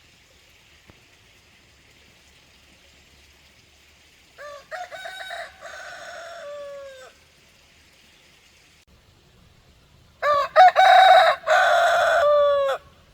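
A rooster crowing twice. The first crow comes about four seconds in and is fainter. The second, louder crow comes near the end, and each crow ends in a falling tail.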